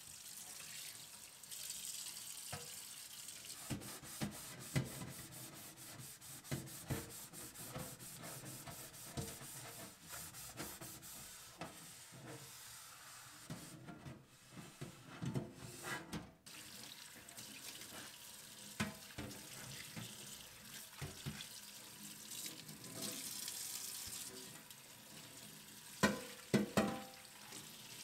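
Water running from a kitchen tap into a stainless steel sink while a ridged non-stick raclette grill plate is scrubbed and rinsed, with quick rubbing strokes and small knocks of the plate against the sink. Two louder knocks come near the end.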